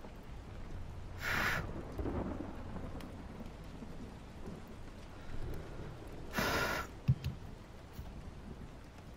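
Steady rain with a low rumble of thunder about two seconds in. Two brief scratchy rustles come about five seconds apart, and a sharp tap follows shortly after the second.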